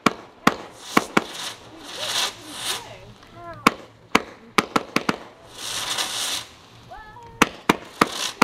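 Consumer fireworks going off: a dozen or so sharp bangs in irregular clusters, with hissing rushes between them.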